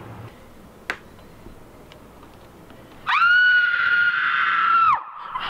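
A young woman screaming: one long, high-pitched scream held at a steady pitch for about two seconds, starting about three seconds in. A single sharp click comes about a second in.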